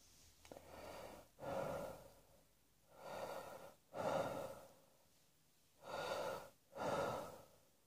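A person breathing faintly, catching their breath after a coughing fit. Six breaths in three in-and-out pairs, a second or more apart.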